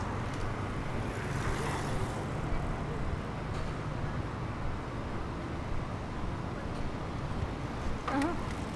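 Steady road traffic with a constant low hum, and one vehicle passing more loudly about a second in.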